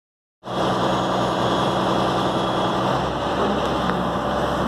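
Truck-mounted crane truck's diesel engine idling steadily, cutting in abruptly about half a second in, its low tone shifting slightly about three seconds in.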